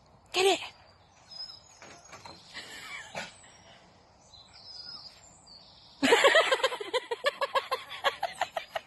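A dog gives one short high cry near the start, then about six seconds in breaks into a rapid string of high-pitched yips, four or five a second. Birds chirp faintly in between.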